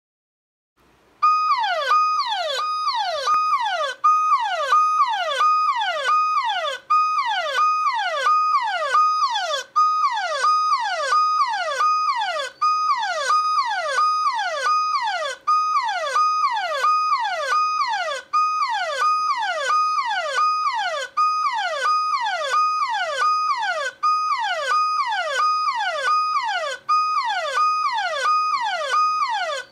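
Smartphone anti-theft alarm app's siren sounding from the phone's loudspeaker, set off when the phone is picked up. It starts about a second in as a loud electronic whoop repeating several times a second, each stroke a held high note that drops in pitch, with a short gap every few seconds. It keeps sounding until the owner's PIN is entered.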